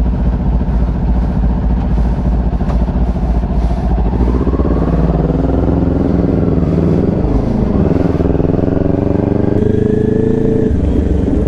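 Motorcycle engine idling with a steady low rumble, then pulling away after about four seconds, its note rising, dipping once at a gear change and climbing again.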